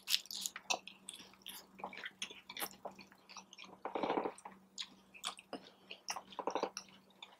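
Close-miked chewing of a crunchy taco shell: many small, irregular crunches and wet mouth clicks.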